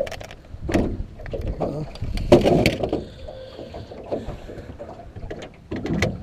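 Irregular knocks and clatter of fishing gear, a landing net and rod, being handled in a boat, the loudest burst about two and a half seconds in and another near the end.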